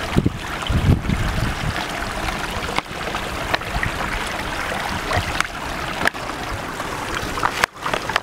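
Running water from a stream or spring where drinking water is being collected: a steady rush with a few light knocks.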